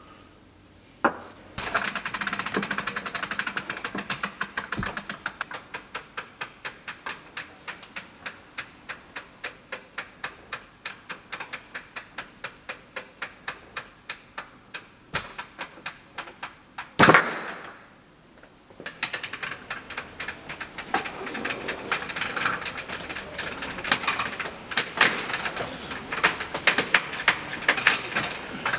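Tensile test bench being wound up to load a Dyneema rope knotted to a steel shackle, clicking steadily about three times a second. A single loud bang comes about two-thirds of the way through, then after a short pause the clicking resumes, faster and more irregular.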